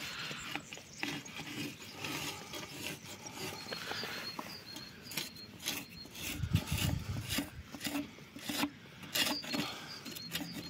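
Rubbing and scraping against a chestnut beam with scattered light knocks and clicks, as the wood is measured and handled by hand.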